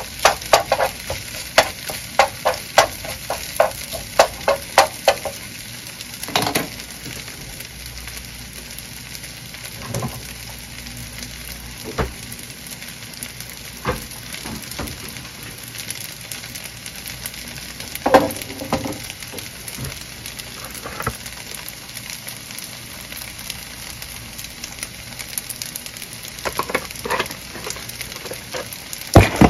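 Kimchi fried rice sizzling in a nonstick pan. For the first five seconds or so a spatula scrapes and taps against the pan two or three times a second; after that the rice keeps frying with only an occasional knock, and the tapping picks up again near the end.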